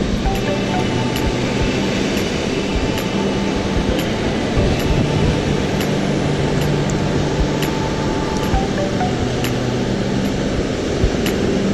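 Steady noise of ocean surf breaking on the beach, with wind buffeting the microphone.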